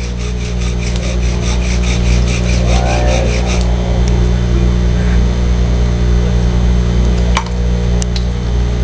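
Bow drill spindle rubbing back and forth in a basswood fireboard, in fast, even strokes several times a second, pushing for an ember once the notch is full of wood dust. The strokes stop about halfway through.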